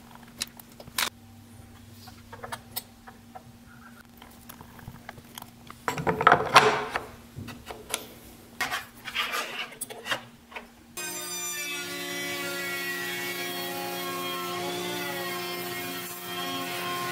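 Clicks and clatter of fitting bearings and a clear acrylic guard onto a rabbeting router bit, loudest about six seconds in. About eleven seconds in, a table-mounted router starts running steadily as a walnut board is fed past the multi-rabbet bit, its pitch wavering slightly while it cuts.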